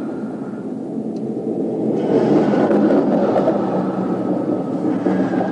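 Steady vehicle rumble on a police car's dashcam audio, growing louder about two seconds in and easing off again.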